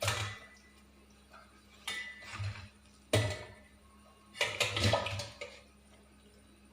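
Pieces of raw chicken dropped one after another into a bowl of wet masala marinade, each landing with a wet splat and a knock against the bowl; several separate drops with short pauses between.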